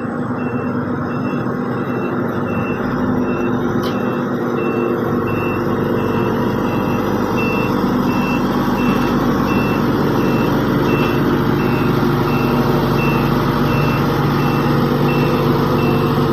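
Heavy diesel construction vehicle running with its reversing alarm beeping steadily, about two high beeps a second, over the engine's drone, which grows a little louder toward the end.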